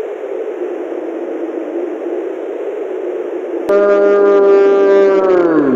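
A slowed-down, deepened slow-motion yell. A low, hazy drone gives way about two-thirds of the way in to a louder held note with many overtones. Near the end the note slides sharply down in pitch, like a tape slowing to a stop.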